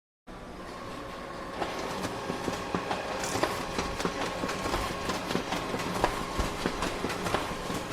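Photocopier running: a steady mechanical hum with a held tone and a stream of irregular clicks and clacks. It starts abruptly and grows a little louder about one and a half seconds in.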